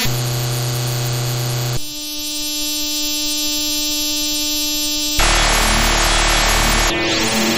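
A string of harsh electronic sound effects that switch abruptly from one to the next. There is a held buzzy tone, then a steadier held tone from about 2 s in, and a loud, harsh, noisy buzz from about 5 s in. Near the end come crossing rising and falling pitch sweeps.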